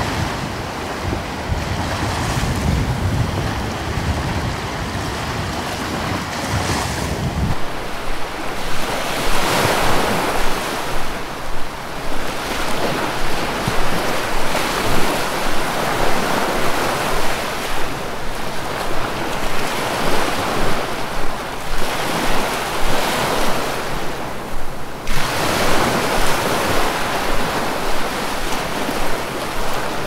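Ocean surf: waves breaking and washing in, the rush of water swelling and fading every few seconds. A low rumble under it drops away about seven seconds in.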